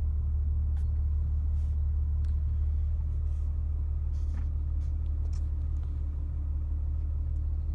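Audi SQ5's 3.0-litre twin-turbo V6 diesel idling in Park, a steady low rumble heard from inside the cabin.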